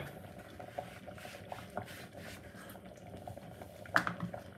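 Vegetable soup simmering in a large lidded metal pot: a soft, low bubbling with small pops, and one brief louder sound near the end.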